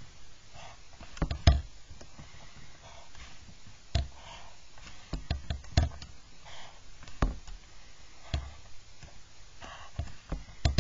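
A pencil drawing short lines on paper along a drawing board's sliding straight edge: faint brief scratches with scattered sharp taps and knocks as the pencil meets the paper and the rule is shifted, several of them close together about five seconds in.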